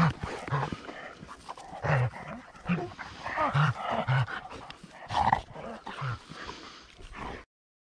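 Polish hounds panting hard and worrying a shot wild boar, with short low dog noises between breaths; the sound cuts off suddenly near the end.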